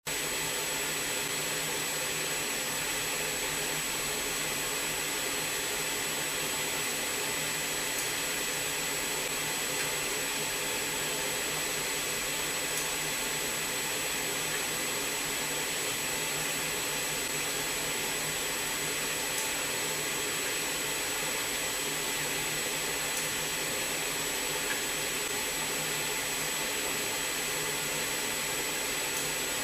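Steady machine noise, an even hiss with a thin high whine over it, unchanging throughout.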